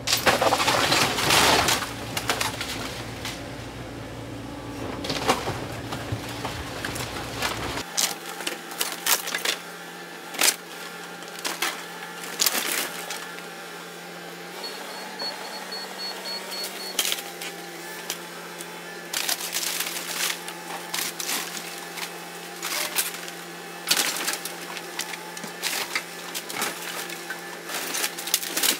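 Heavy equipment demolishing an old wood-frame house: lumber cracking and debris crashing in many sharp snaps and knocks, over the machine's steady engine hum. A low rumble drops away about eight seconds in.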